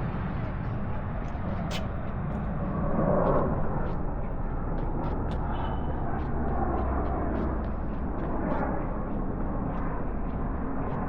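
Outdoor park ambience with a steady hum of distant traffic, and light footsteps ticking about twice a second.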